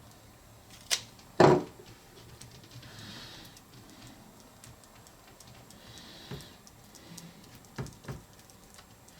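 Small objects being handled on a workbench during a fiberglass and epoxy repair: a sharp click about a second in, then a louder knock, with soft brushing and a few lighter taps and clicks near the end.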